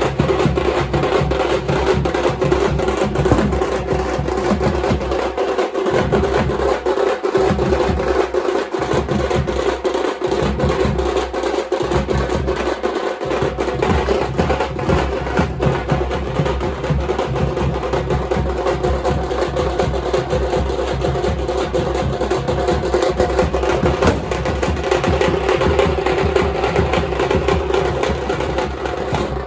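Drums beaten loudly in a fast, continuous rhythm. Between about 5 and 13 seconds in, the deep beat drops out briefly about every second and a half.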